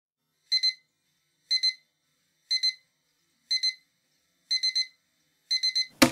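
Small electronic alarm clock beeping, a cluster of short beeps once a second, going from double to triple beeps near the end. About six seconds in, a sharp knock cuts the beeping off as a hand slaps the clock.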